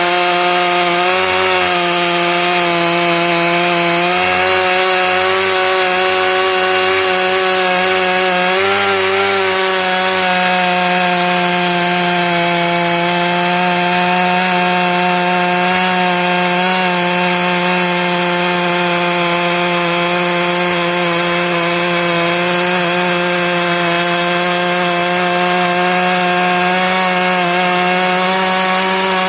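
Stihl MS 661 two-stroke chainsaw powering a chainsaw mill with a ripping chain, running steadily under load as it rips along a log. Its pitch wavers slightly in the first ten seconds, then holds even.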